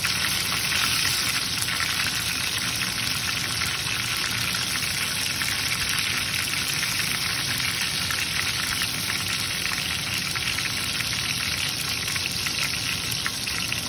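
Tadka sizzling in a pan of hot ghee: chopped garlic and black cumin frying with a steady crackling hiss.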